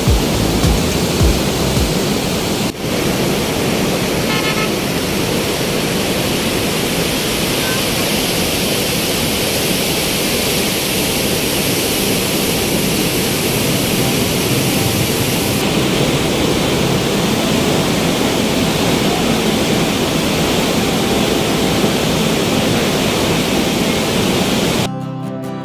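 Loud, steady rushing noise of fast-flowing floodwater at a barrage, with a short, faint horn toot about four seconds in.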